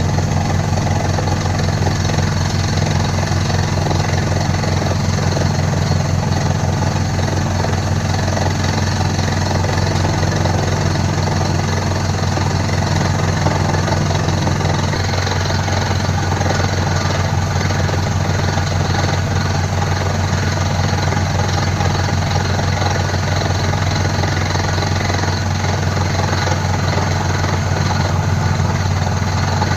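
Rock drilling machine running continuously while drilling into hard rock: a loud, steady mechanical drone with a fast, even rattle.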